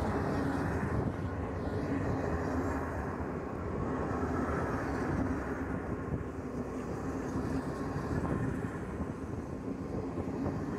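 Passenger train coaches rolling past on the track: a steady rumble of steel wheels on the rails.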